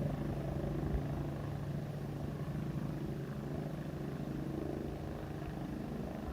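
Rescue helicopter running overhead, its rotor giving a steady low pulsing beat that slowly fades.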